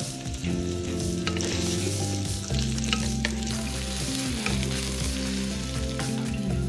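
Cubed potatoes sizzling as they fry in hot oil in a wok, stirred and turned with a wooden spatula, giving a few short scraping clicks against the pan.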